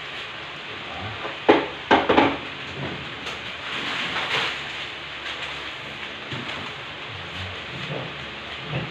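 Meat frying in a pan with a steady sizzle, broken by a few sharp knocks about one and a half to two seconds in.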